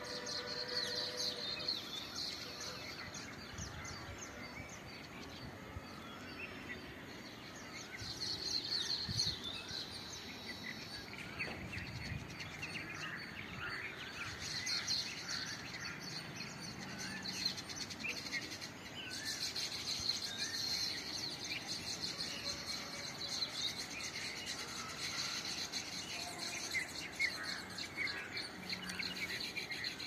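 A colony of baya weavers chattering and chirping, many small calls overlapping, swelling in louder spells now and then.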